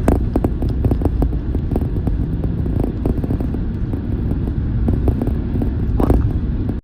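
Car on the move: a steady low road-and-engine rumble with many scattered light clicks and knocks.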